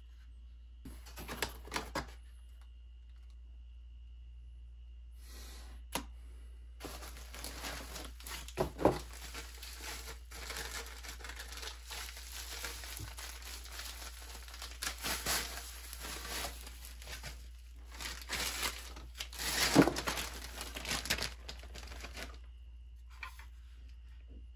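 Plastic bubble wrap crinkling and rustling as it is pulled off a set of shotgun barrels, after a few light handling knocks in the first seconds.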